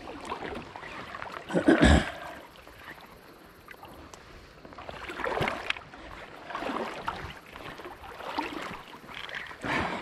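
Water sloshing and splashing around an angler's legs as he wades through a shallow, rocky creek, in uneven surges with the loudest about two seconds in.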